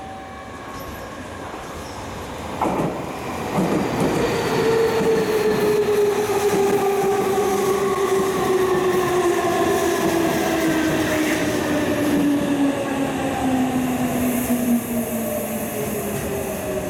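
Tokyu 3000 series electric train pulling into the station under braking: its traction motor whine falls steadily in pitch as it slows, over wheel-on-rail running noise. The sound gets louder about three seconds in as the train reaches the platform.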